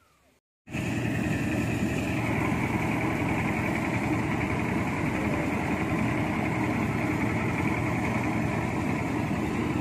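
Mobile rice thresher running steadily, its engine and threshing drum working while rice stalks are fed in; the steady machine noise cuts in abruptly under a second in.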